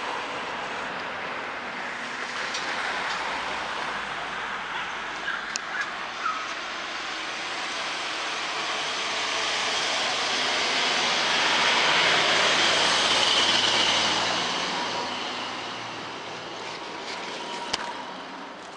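A passing vehicle heard as a steady rushing noise that slowly builds to a peak and then fades away, with a few faint clicks.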